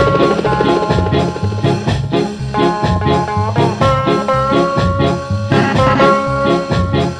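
Upbeat background music with a steady, bouncing bass beat and held melody notes over it.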